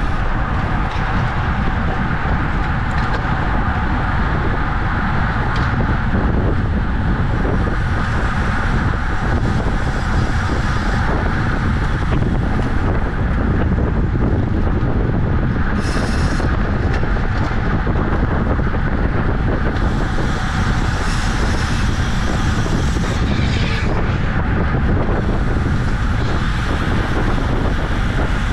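Steady wind noise on the microphone of a camera carried on a racing bicycle at speed, with road and tyre noise underneath.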